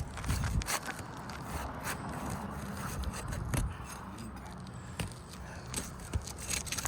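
A pry bar scraping and clicking under roof shingles as a sealed shingle is worked loose, with irregular sharp clicks and scrapes.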